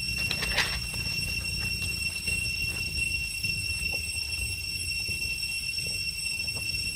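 Faint, brief rustles of dry leaves as a monkey runs across leaf litter, over a steady high whine and a low rumble.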